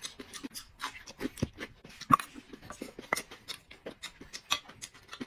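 A person chewing and eating close to the microphone: irregular wet mouth clicks and smacks, several a second, with a sharper, louder click about two seconds in and another about three seconds in.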